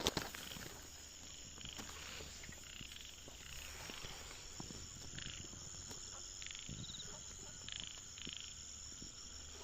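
Frogs calling at night from the fields: short croaks about once a second over a steady high insect trill. A single sharp click at the very start is the loudest sound.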